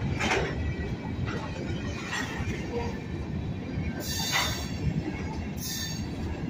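Freight train of covered hopper cars passing: a steady low rumble of steel wheels on the rails, with short high-pitched wheel squeals every second or two, the strongest about four seconds in.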